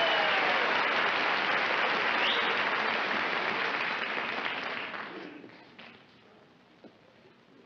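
Studio audience applauding, the clapping dying away about five seconds in, with a short whistle about two seconds in.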